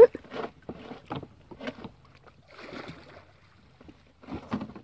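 Oars working a cataract raft on a river: irregular knocks and short splashes of the strokes, with the loudest knock right at the start.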